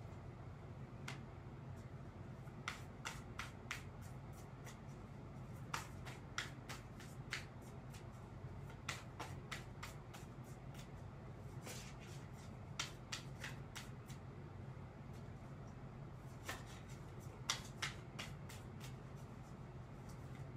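A tarot deck being shuffled by hand: an irregular run of soft card snaps and clicks, some in quick clusters, over a faint steady low hum.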